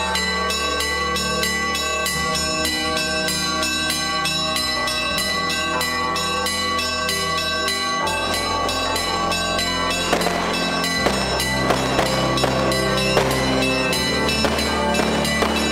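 Church bells ringing in a festive peal, many overlapping tones struck in rapid, even strokes. From about ten seconds in, sharp cracks join in.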